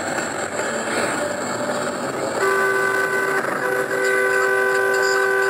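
Steady wind and road rush, then about two seconds in a vehicle horn sounds in a long, steady blast, breaking off briefly once and held for about three seconds.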